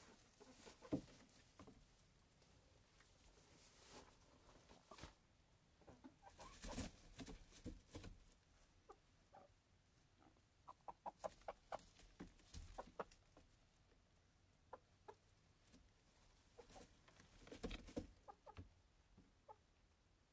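Faint, soft clucks from roosting chickens, with a run of short clucks around the middle. Occasional brief rustles of feathers and hay as a hand pets the birds.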